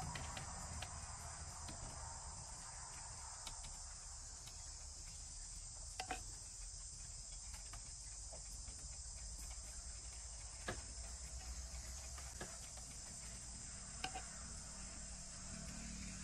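A steady high-pitched insect chorus, with a few sharp, isolated clicks of a knife cutting over a clay mortar.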